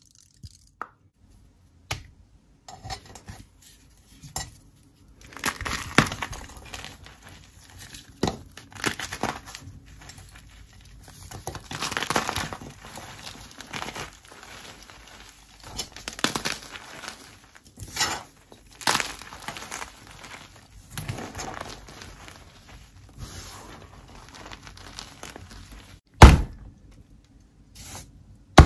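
Blocks of gym chalk sandwiched with wet paint being crushed and crumbled by hand: irregular crunching and crumbling with gritty powder sounds. Near the end, one hard, loud crack as a chalk block is snapped.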